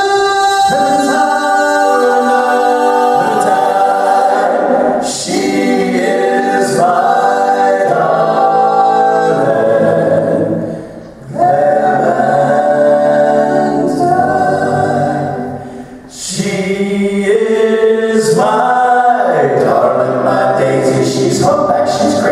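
Male vocal quartet singing a cappella in four-part harmony into microphones. The sound dips briefly twice between phrases, about halfway through and again a few seconds later.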